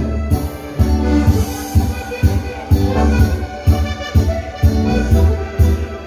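Instrumental dance music with a steady beat, about two beats a second, and heavy bass on every beat.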